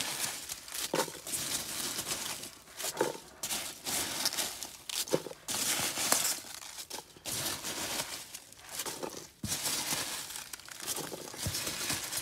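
A hand rummaging through foam packing peanuts and bubble wrap in a cardboard box, rustling and crinkling in repeated spells of a second or two with short pauses between.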